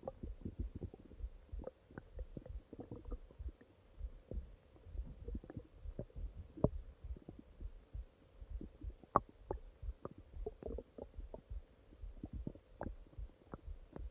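A person's stomach growling: a continuous, irregular run of short gurgles and pops, with the two sharpest pops about six and a half and nine seconds in.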